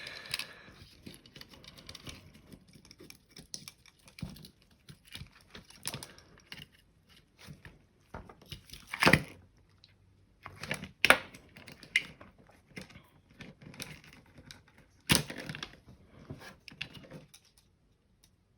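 Plastic parts of a Razer Diamondback computer mouse being handled and pried apart: irregular small clicks, scrapes and rustles, with sharper knocks about 9, 11 and 15 seconds in.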